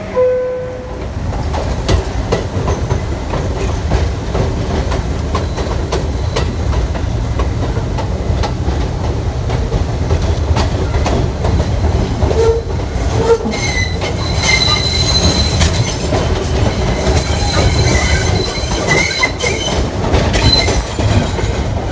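Elevated subway train pulling out of a station. It opens on the last note of the two-tone door-closing chime, followed by a steady low rumble with clicking wheels over rail joints. From about two-thirds of the way in, the wheels squeal in thin high tones on and off.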